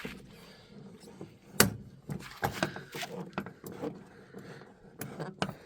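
A string of scattered short clicks and knocks, the sharpest about one and a half seconds in.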